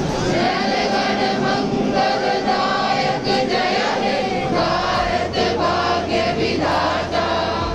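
A group of voices singing together in unison, holding long notes.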